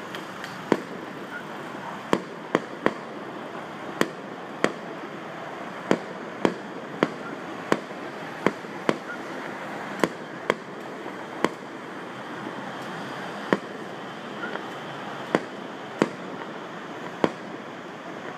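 Aerial fireworks shells bursting in the distance: about twenty sharp bangs at irregular intervals, some in quick pairs, over a steady background noise.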